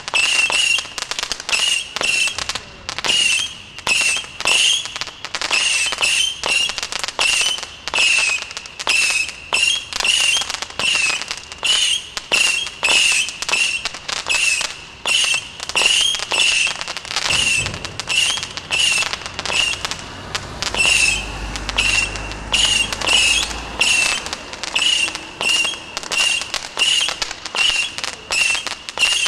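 A firework barrage cake firing whistling missiles in rapid, steady succession, about two a second. Each shot is a short whistle topped with crackle. A low rumble runs underneath for a few seconds around the middle.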